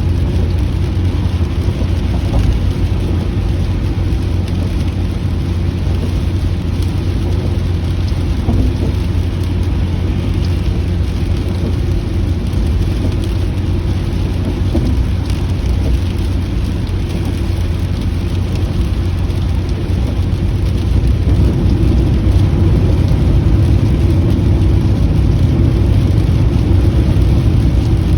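Steady rain on a moving car, heard from inside the cabin, over a low, even rumble of road and engine noise; it grows a little louder about two-thirds of the way through.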